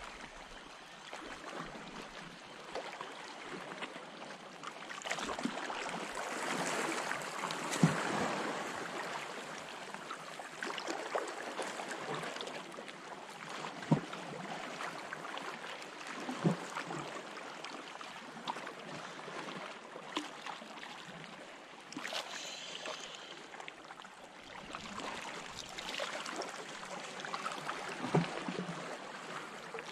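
Seawater sloshing and splashing as a hooked European sea bass is played in shallow water and taken by hand, with a few short sharp splashes, the loudest about eight and fourteen seconds in.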